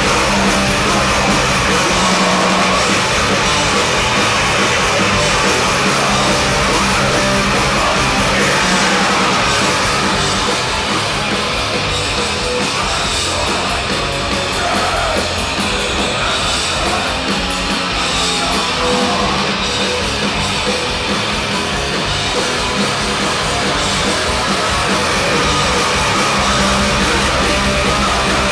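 Live crust punk band playing at full volume: distorted electric guitars, bass and drums with shouted vocals, heard from the audience.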